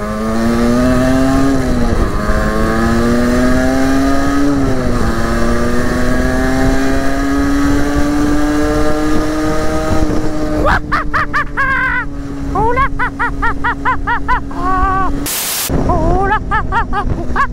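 50cc motorcycle engine pulling away, its pitch rising and dropping back at two gear changes in the first five seconds, then climbing slowly to a steady cruise.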